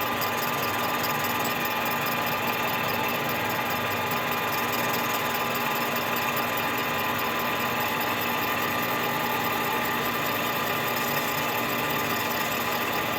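Metal lathe running steadily while a carbide-tipped cutter feeds slowly across the base of a Stihl MS 261 chainsaw cylinder, taking a light facing cut of about 15 thou.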